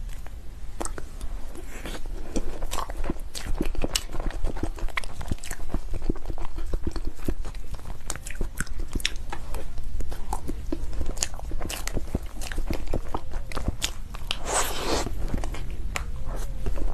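Close-miked eating sounds. A metal spoon clicks and scrapes in a cream-filled chocolate shell, and the shell crunches as it is broken and bitten, with chewing. There is a denser crackling burst near the end.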